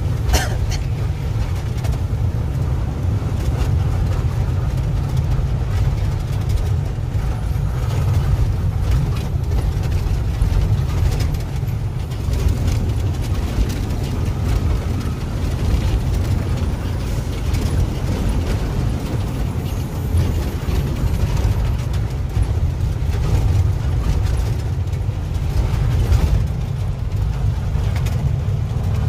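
Truck engine and road noise heard from inside the cab while driving: a steady low rumble that holds even throughout.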